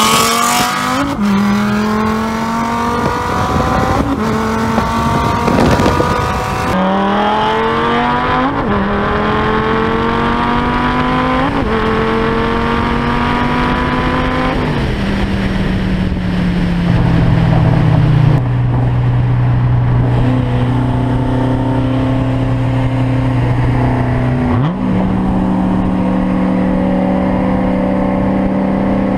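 Heads-and-cam Dodge Viper V10 heard from inside the car, pulling hard at full throttle with the note rising through each gear and dropping back at several quick upshifts. About halfway through it lifts off and settles to steady part-throttle running. Near the end a quick rev blip takes it up to a higher steady note.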